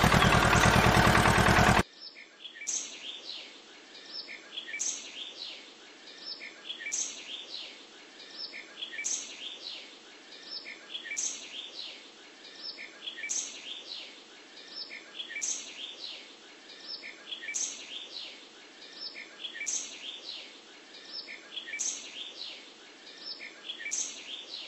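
A loud, steady mechanical noise cuts off suddenly in the first two seconds. It gives way to quieter bird chirping: the same short phrase of high, falling chirps repeats about every two seconds, like a looped birdsong background track.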